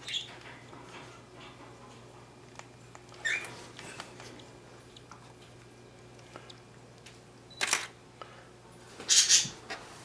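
Scattered close handling noises, with a short high chirp about three seconds in and two louder sharp, hissy rustles near the end.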